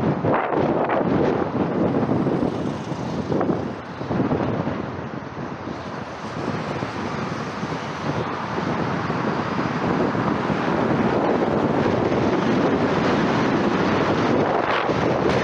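Wind buffeting the microphone of a moving car, over tyre and road noise. It eases off for a few seconds near the middle, then picks up again and holds steady.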